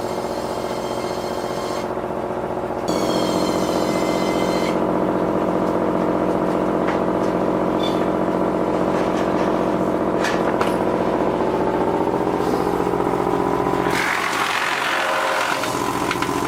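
A heavy machine's engine running steadily, stepping up louder about three seconds in, with a few scattered clanks.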